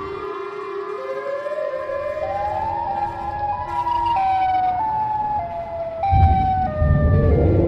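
Siren Head's siren wail: a pitched, siren-like tone that climbs upward in steps and then steps back down. A deep low rumble comes in about six seconds in.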